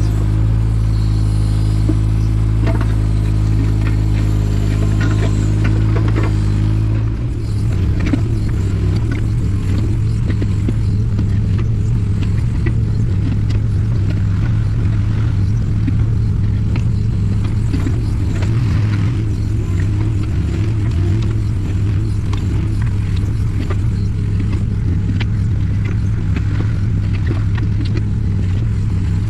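Takeuchi TB216 mini excavator's diesel engine running, with clicks and clatter from the toothed bucket working stony topsoil. About seven seconds in, the engine's steady note changes to a rougher, fluctuating rumble.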